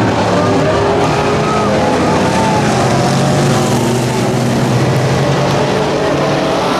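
Several street stock race cars' V8 engines running hard around a dirt oval, with overlapping engine notes rising and falling as the cars go through the turns.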